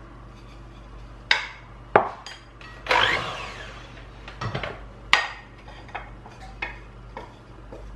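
Wooden spoon knocking and scraping against a small bowl and the rim of a glass mixing bowl while flour is tipped into cake batter: several sharp knocks, the loudest about a second, two seconds and five seconds in, with a short scraping rub around three seconds in.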